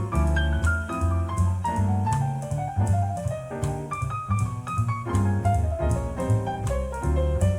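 Jazz piano and double bass playing an instrumental passage, reproduced through JBL 4307 studio monitors. The piano plays quick runs of notes that step downward in pitch over steady bass notes.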